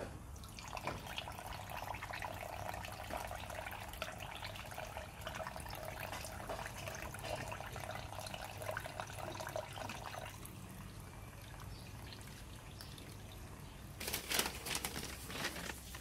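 Cloth rustling and crackling as a fabric wrapping is folded by hand over a body in a grave, easing off about two-thirds of the way through; near the end a sheet of newspaper crinkles sharply as it is handled.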